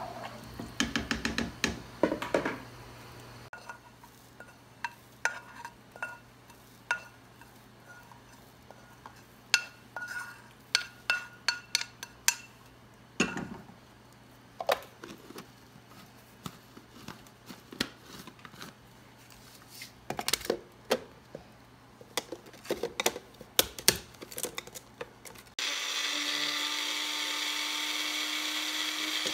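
Metal kitchenware clinking and knocking: sharp taps with a brief metallic ring, scattered irregularly. About twenty-six seconds in, a small electric appliance motor starts and runs steadily, its hum rising slightly in pitch.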